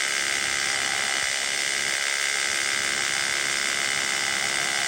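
A motor runs steadily with a high-pitched whine over a constant hiss of heavy rain.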